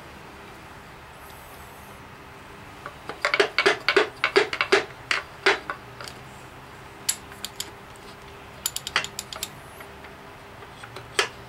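Hammer tapping on a piston and connecting rod in a small-block Chevy block to drive the piston out of its bore: a quick run of about ten sharp metallic clinks, then a few scattered single taps.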